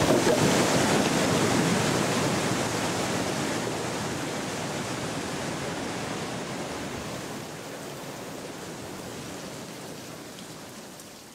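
Floodwater from a tripped timber driving dam rushing down a creek bed as a torrent. It is loudest at the start and dies away steadily as the surge passes.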